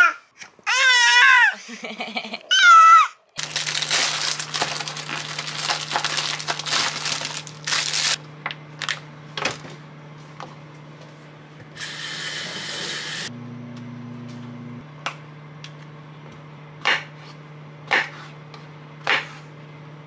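A small child's high voice calling out a few times, then hands peeling button mushrooms and a kitchen knife slicing them on a wooden cutting board, with single cuts about once a second near the end. A steady low hum runs underneath.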